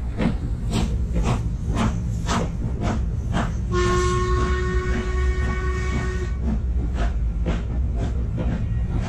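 Steam locomotive hauling the Jacobite train, its exhaust chuffing evenly about twice a second. About four seconds in, the whistle sounds for about two and a half seconds.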